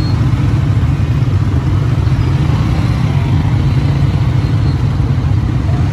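Motorcycle being ridden: a steady, loud low rumble that keeps up without a break.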